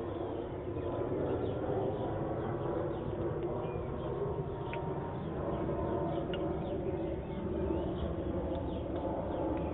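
Domestic hens making low, throaty murmuring calls as they feed together, with a couple of sharp taps near the middle as beaks strike the food dish.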